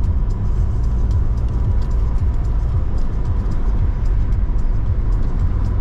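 Car being driven at a steady highway speed: a continuous low rumble of road and engine noise.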